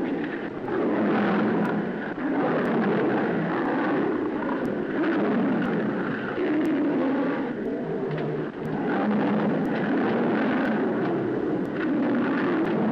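A lion and a tiger snarling and growling without a break as they fight, heard on an old, worn film soundtrack with faint clicks.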